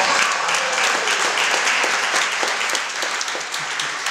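Audience applauding, a dense run of many hands clapping that eases off slightly towards the end.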